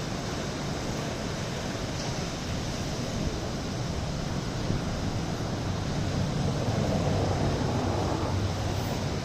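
Atlantic surf rushing against the rocks at the mouth of the Douro in a steady wash, swelling louder about six seconds in as a wave breaks.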